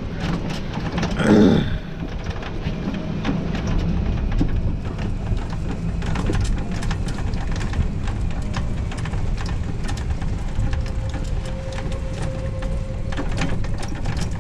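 Riding in an open resort buggy: wind rumbling on the microphone, with many small rattles and clicks. There is a louder burst about a second in.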